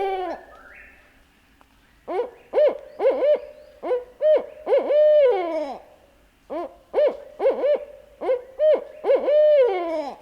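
Barred owl hooting in its 'who-cooks-for-you' rhythm: a falling hoot at the start, then two phrases of rapid hoots, each ending in a drawn-out note that slides down.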